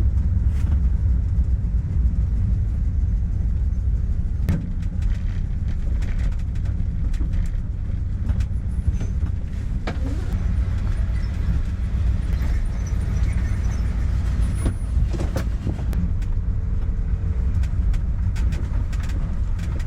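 A vehicle engine running steadily, a low even rumble, with a few light clicks and knocks over it.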